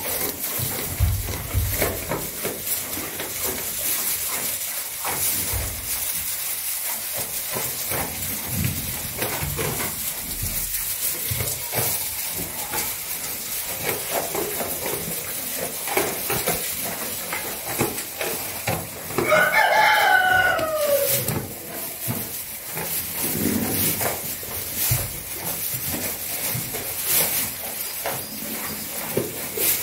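A rooster crows once, about two-thirds of the way in: a single call of about two seconds that falls in pitch at the end. Around it runs a steady rustle of straw with small knocks as goat kids move about the pen.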